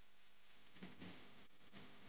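Near silence: a faint even hiss, with a few faint soft knocks or notes a little under a second in and again near the end.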